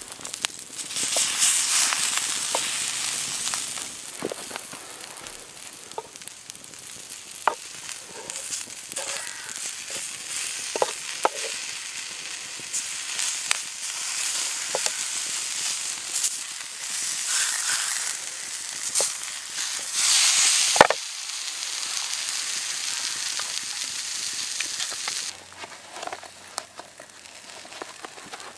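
Vegetables sizzling on a flat stone heated over a campfire, the hiss rising and falling, with a wooden spatula scraping and turning them and scattered sharp crackles and clicks; one loud crack about two-thirds of the way through. Near the end the sizzle drops to a quieter hiss.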